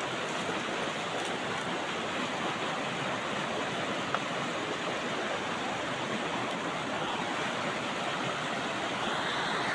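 Shallow, rocky mountain stream rushing over small rapids: a steady wash of running water.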